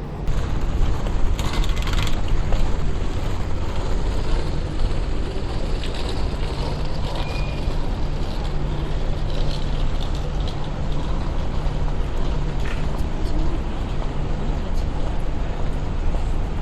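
City street traffic noise: a steady vehicle engine rumble with a low hum, and a few faint clicks.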